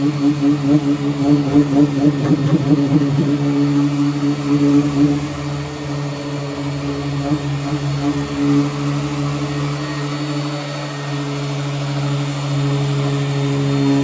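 Power sander running continuously against car body panels, a steady motor hum. The hum is rougher and pulses in loudness for the first five seconds or so, then settles smoother.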